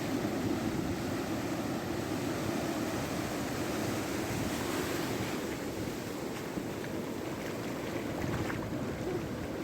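Heavy sea surf: big waves breaking and washing up the beach in a continuous rush of water.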